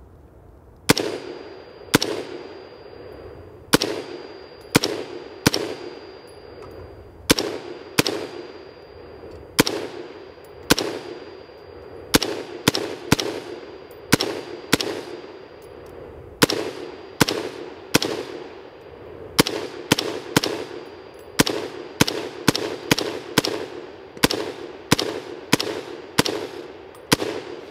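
Brownells BRN-Proto, a replica of the late-1950s Armalite AR-15 prototype in 5.56 mm, firing single semi-automatic shots, about thirty in all. The shots come about one a second at first, then faster, near two a second, in the second half, each followed by a short echo.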